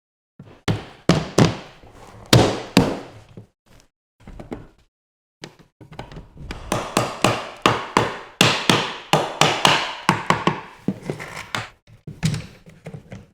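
An irregular series of sharp knocks and taps, like wooden parts being handled and set down. They come thickest in a busy run in the second half.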